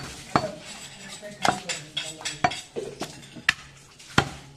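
A heavy meat cleaver chopping goat ribs on a wooden log chopping block: about half a dozen sharp chops, irregularly spaced.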